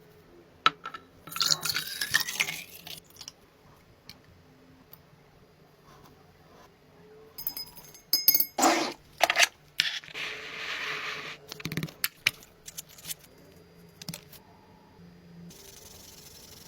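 Hand work with hard objects: scattered clinks and knocks, a short hiss with a rising whistle about a second in, a cluster of loud strokes around the middle, then another hiss.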